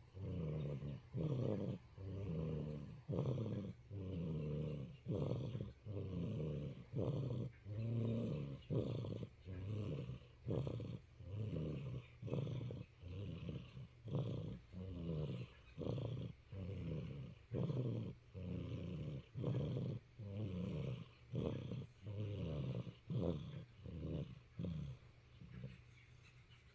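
Cat purring loudly, a low buzz that swells and breaks in a steady rhythm of about one breath a second, fading out near the end.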